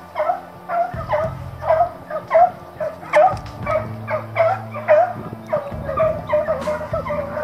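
Beagle-Harrier hounds giving tongue while hunting boar: quick, repeated yelping cries, about two or three a second.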